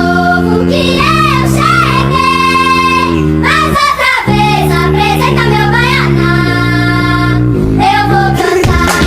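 Music with a singing voice holding long, gliding notes over a steady accompaniment.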